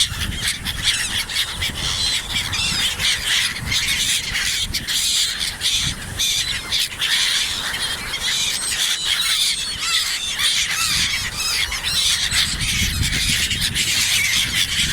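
A large flock of gulls calling and squawking over one another in a constant, dense din, with a low rumble of wind underneath.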